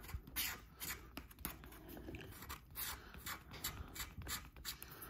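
Plastic-tipped scratcher tool scraping the coating off an instant lottery scratch ticket, in short quick strokes a few times a second.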